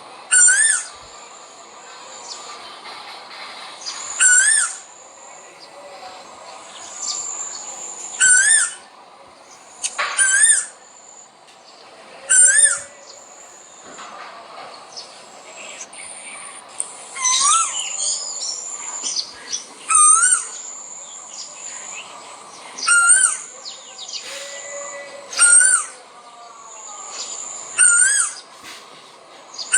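Male koel repeating its rising call about a dozen times, one every two to four seconds, with a few calls doubled close together. Fainter high-pitched bird chirps run steadily underneath.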